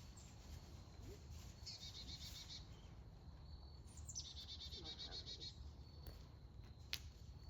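A small bird singing two short, rapid trills of repeated high notes, about two seconds apart, with one sharp click near the end.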